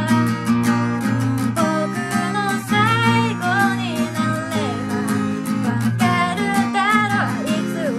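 Acoustic guitar with a capo, strummed steadily in chords, with a woman's voice singing over it.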